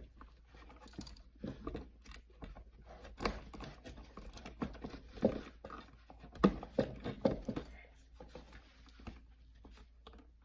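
Wired GFCI receptacle and stiff 12-gauge cable being pushed into an electrical device box by gloved hands: irregular clicks, knocks and rustling, a few sharper knocks past the middle.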